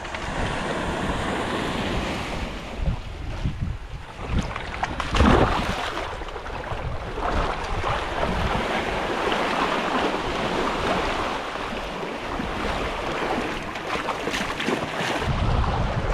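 Sea waves washing, with wind buffeting the microphone; one louder surge of water about five seconds in.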